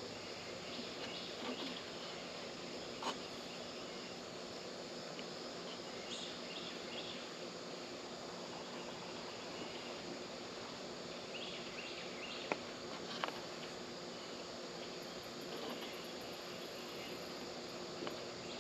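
Outdoor ambience of insects chirping steadily, with a few sharp clicks scattered through it.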